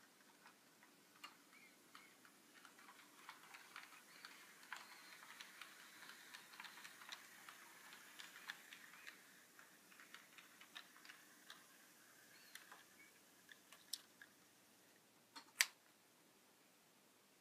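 Faint, irregular clicking of an HO scale model diesel locomotive running along the track, with one sharper, louder click near the end.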